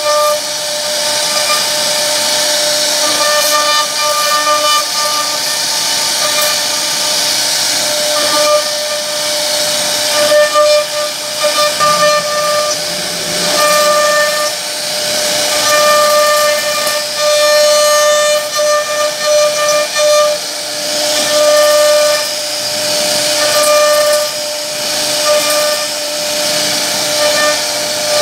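CNC router spindle running with a steady high whine while its carving bit cuts relief grooves into a wooden bed panel, over a hiss of cutting. Higher overtones of the whine come and go every second or so.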